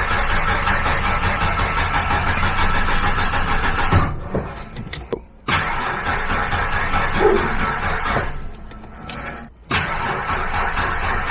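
Starter cranking a first-generation Ford Explorer's 4.0 L V6 in three tries, each cut off sharply, with a pause of a second or two between them. The cranking comes from a weak battery.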